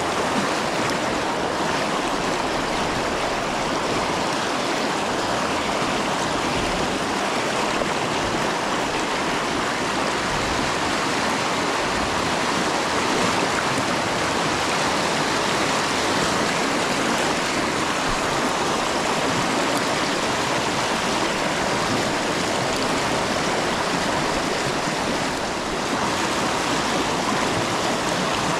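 River water rushing steadily: an even, unbroken wash of water noise with no change in level.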